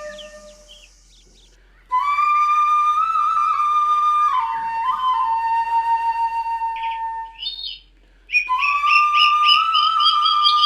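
Flute music: two long held notes, one starting about two seconds in and one about eight seconds in, each stepping down to a lower pitch partway through, with a short break between them.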